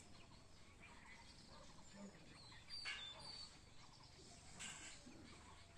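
Faint outdoor background with small birds chirping, and two brief louder noises about three and five seconds in.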